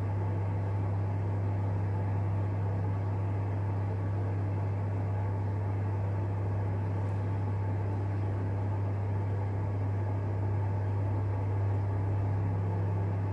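A steady low hum with an even hiss underneath, unchanging in level.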